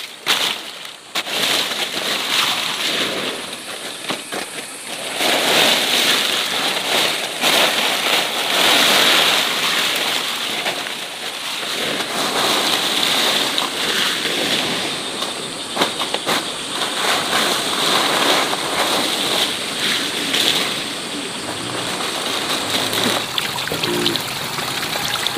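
Water splashing and sloshing, uneven and continuous, with its loudness rising and falling. Music comes in near the end.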